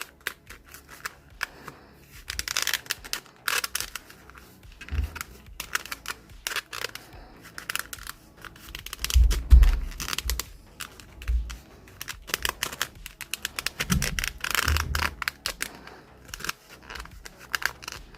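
Hand leatherworking on vegetable-tanned leather: a dense run of scrapes, clicks and rustles of tools working the leather, broken by a few dull knocks.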